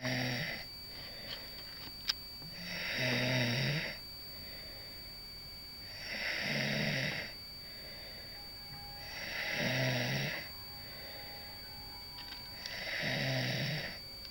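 A woman snoring in her sleep, one long snore about every three seconds, four in all after the tail of one at the very start. A single faint click sounds about two seconds in.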